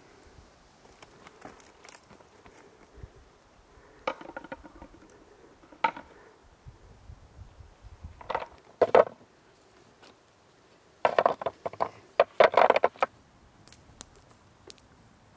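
Footsteps and loose stones on rocky scree: scattered crunches and clatters of rock, with a rapid run of them a little past the middle.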